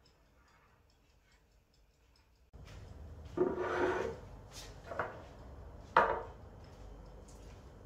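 Handling noise on a kitchen counter: a scraping rub lasting under a second, then two short knocks about a second apart, the second the loudest.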